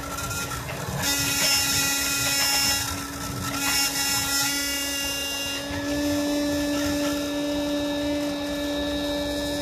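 Homemade CNC engraver at work: a rotary tool spins steadily while its engraving bit cuts into acrylic sheet, and the stepper motors, salvaged from a laser printer and a DVD drive, whine in pitches that shift as the axes move. The cutting hiss gets louder for a couple of seconds about a second in.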